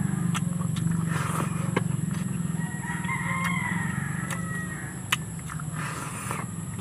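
A rooster crowing in the background, one drawn-out call about three seconds in, over a steady low hum and a steady high hiss. Short clicks of eating by hand and chewing close to the microphone come through now and then.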